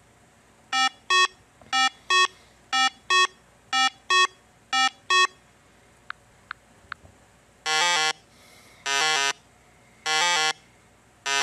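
Recorded zebra calls played back: five evenly spaced pairs of short, high, yelping calls. After three faint clicks about six seconds in, four longer, lower calls follow.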